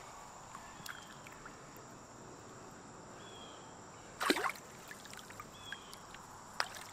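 Outdoor evening ambience: a steady high-pitched insect drone with a short falling bird chirp repeating every two to three seconds. One brief louder sound comes about four seconds in, and a sharp click comes near the end.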